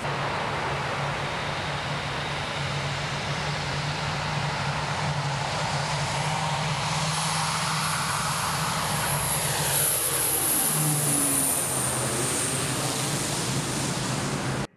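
Pilatus PC-12 single turboprop with a five-blade MT propeller at takeoff power: a steady low propeller drone under a rushing noise and a high turbine whine. The pitch sweeps down about ten seconds in as the aircraft passes and climbs away.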